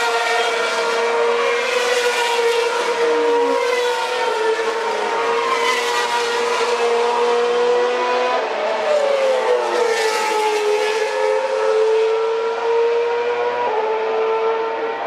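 Formula 1 cars' 2.4-litre V8 engines running at high revs, several cars in succession, their high-pitched note sweeping down in pitch as each one goes by.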